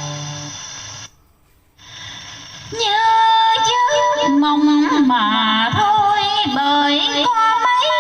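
Vọng cổ singing: a held note fades away, a brief pause of near silence follows, and then the voice comes back in about three seconds in, with a winding, ornamented melodic line.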